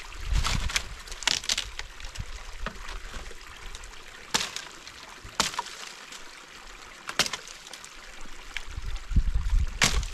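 Dry branches and twigs cracking and snapping now and then, about six sharp snaps at uneven gaps, as brushwood is handled, over the steady trickle of a small stream.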